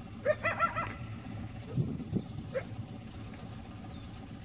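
Coyote barking an alert: a quick run of rising yipping barks about a quarter second in, then a single short bark about two and a half seconds later, over a steady low hum.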